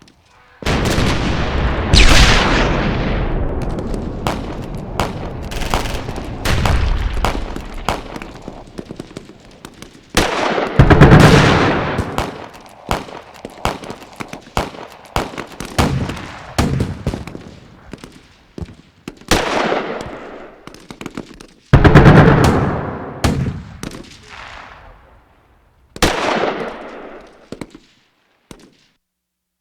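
Background gunfire sound effect: scattered rifle shots and rapid machine-gun bursts with echoing reports, broken by a few heavier blasts about two, eleven and twenty-two seconds in. The firing thins out and stops near the end.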